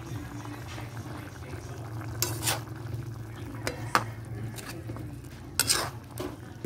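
A utensil stirring chicken curry in a metal pan, knocking and scraping against the pan several times, over a steady low hum.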